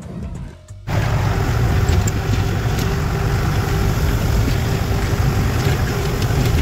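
Steady rumble of wind buffeting the microphone and road noise from a moving vehicle, cutting in abruptly about a second in.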